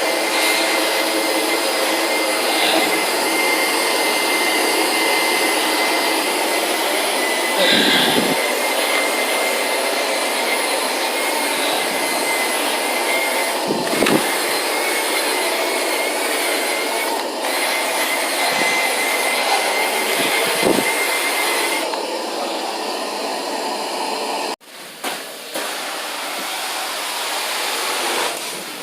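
Vacuum motor running steadily, with a thin high whine over its airflow noise. The sound thins out about 22 seconds in and cuts out sharply for an instant a few seconds later.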